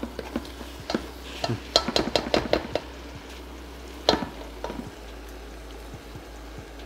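A cooking spoon stirring broccoli and onions as they sauté in a pot, knocking and scraping against the pan in a quick run of strokes about two seconds in and once more, louder, about four seconds in, over a faint sizzle.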